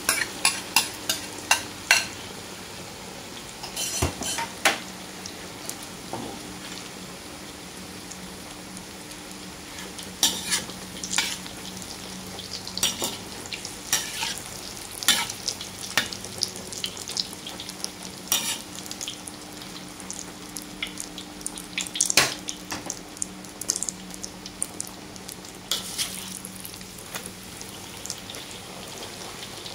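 Egg deep-frying in a wok of hot oil into a crispy omelette, sizzling with frequent sharp crackles and pops, while a metal mesh strainer stirs and taps in the wok. A steady low hum runs underneath.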